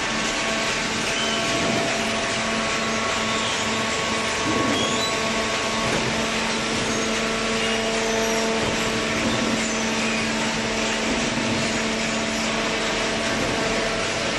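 Industrial machinery running steadily: a constant hum holding several fixed pitches over a loud, even rushing noise, with no distinct strokes or impacts.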